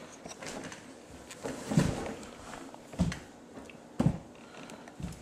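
Four dull thumps about a second apart: a body falling onto and knocking against a wooden floor.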